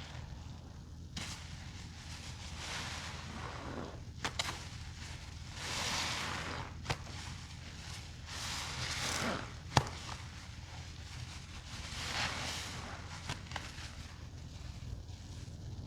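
Soapy sponges being squeezed out during a rinse, squelching with water about four times, roughly three seconds apart. A few sharp clicks fall between the squeezes, over a steady low hum.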